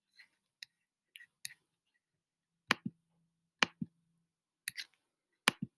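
Computer mouse clicked over and over: a few faint taps, then about once a second a sharp pair of clicks as the button is pressed and released.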